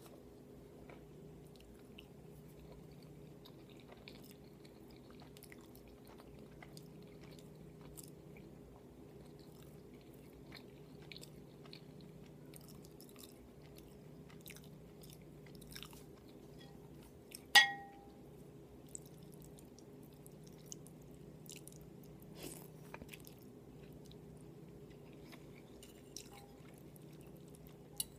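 Close-miked chewing and wet mouth noises from eating, a stream of small faint clicks and smacks over a steady low hum. A little over halfway through, one much louder sharp click with a short ring.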